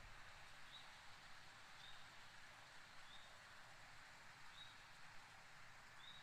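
Near silence outdoors, with a faint, short, high chirp from a small animal repeating about every second and a half.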